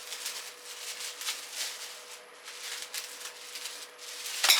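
Irregular rustling and scraping of packaging as pressure-washer parts are handled and unboxed, with a sharper, louder rustle near the end. A faint steady hum runs underneath.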